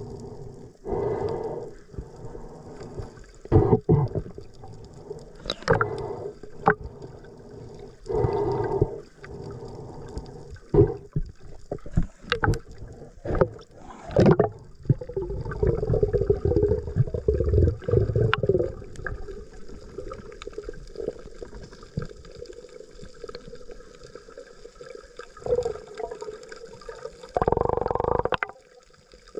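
Sea water bubbling and gurgling, muffled as heard underwater, in irregular swells with scattered sharp knocks and a longer rushing stretch in the middle.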